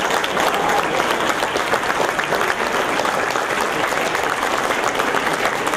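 An audience applauding steadily, many hands clapping at once in a dense, unbroken patter.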